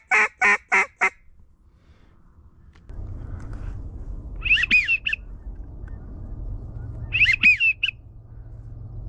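Duck call blown in a quick run of loud, evenly spaced quacks, about three a second, ending about a second in. A low steady rumble follows, with two short bursts of high whistled chirps a little under three seconds apart.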